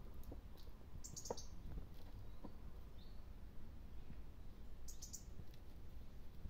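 Faint scattered clicks and knocks from goats' hooves shifting on wooden slats, with two short rustles, about a second in and again near five seconds.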